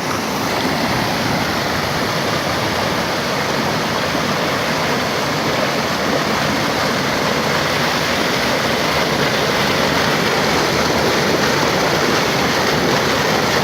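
Steady rushing water, an even roar of flowing or falling water with no breaks.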